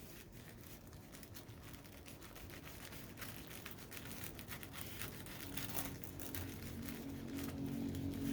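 Paper or plastic packaging crinkling and rustling as items are unwrapped by hand, the crackles getting busier as it goes on. A low steady hum comes in during the last few seconds.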